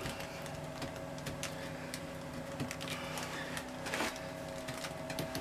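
Clear vinyl tubing being handled and worked around a wooden board: scattered light taps, scrapes and rustles, with a louder knock about four seconds in, over a steady hum.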